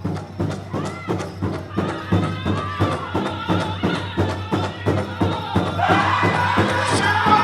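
Powwow drum group: a large drum struck in a steady beat, about three beats a second, with a high solo voice starting about a second in. Near the end a fuller chorus of singers comes in, louder.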